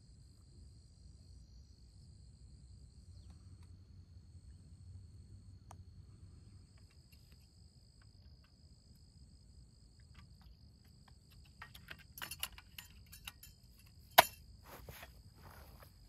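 Insects trilling steadily with two thin high tones, over a low rumble of wind. Near the end come a series of light knocks and clatter as camping gear is handled, with one sharp loud click a couple of seconds before the end.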